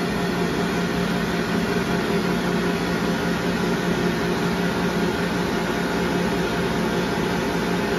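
Nova 5 hand dryer, sensor-started, blowing steadily: an even rush of air over a steady motor hum.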